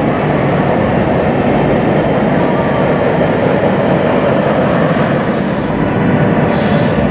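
Flying roller coaster train running at speed along its steel track, heard from on board: a steady, loud rushing rumble of the wheels on the rails and the air going past.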